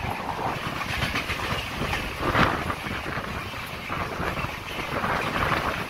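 LHB passenger coaches of an express train rolling past close by on the next track: a steady rumble of wheels on rails, with clicking as the wheels cross rail joints.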